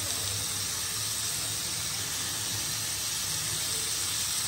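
Chicken tikka kebab skewers sizzling in an oiled grill pan, a steady even hiss as oil is brushed over them.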